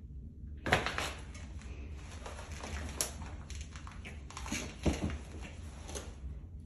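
Rustling and scraping of a ripple rug's carpet layers as kittens pounce and scramble over and under it, with sharp louder hits about a second in, near the middle and about two-thirds of the way through.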